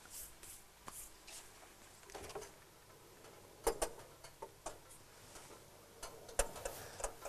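Faint, scattered clicks and light knocks of a kitchen oven door being handled, over quiet room tone.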